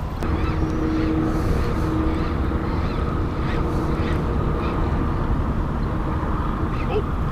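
Steady low rumble of wind and water on an open boat, with a boat motor humming at a steady pitch for the first couple of seconds.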